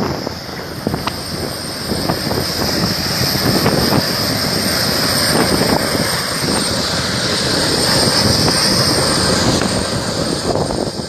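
Embraer E195 jet's turbofan engines running at taxi power: a steady high whine over a continuous rushing noise.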